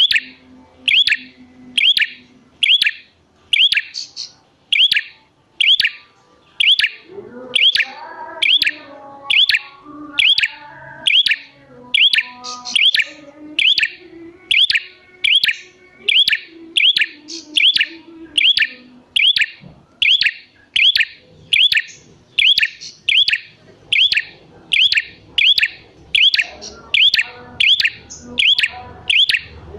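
Prinia (prenjak) calling: the same short, sharp chirp repeated in a steady rhythm, about two a second.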